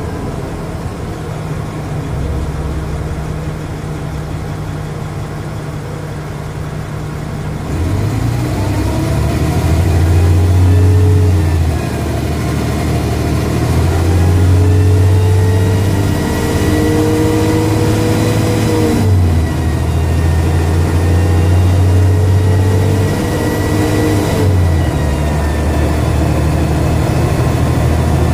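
Dennis Trident double-decker bus engine idling, then pulling away about eight seconds in and climbing in pitch through three runs, each ended by a gear change of its Voith automatic gearbox. A high whine rises underneath as it speeds up, which the uploader calls a bad turbo.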